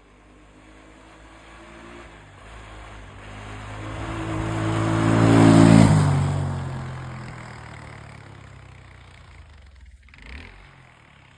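ATV engine at full throttle passing close by: it grows louder as it approaches, peaks about six seconds in, then drops in pitch and fades as it goes away.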